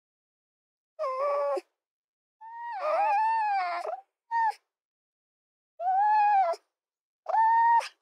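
Red fox calling: five separate high, pitched calls with complete silence between them. The longest, starting about two and a half seconds in, lasts over a second and a half and wavers up and down in pitch; a very short one follows just after.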